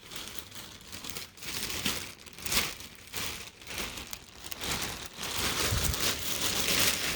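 Hands rummaging through a box of packing material, with crinkling and rustling plus small knocks of items being moved while searching for a missing piece. It gets louder over the last couple of seconds.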